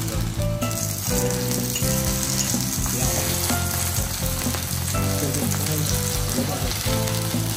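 Food sizzling steadily on a teppanyaki iron griddle, under light background music.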